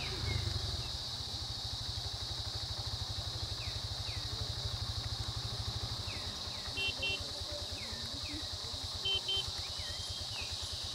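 An engine idling with a fast, even low putter, under a steady high drone of insects and short falling bird chirps. Two pairs of short beeps sound about seven and nine seconds in.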